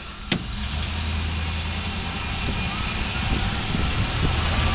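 Truck running along with a steady low engine and road rumble and a rush of wind noise, slowly growing louder. A single sharp click about a third of a second in.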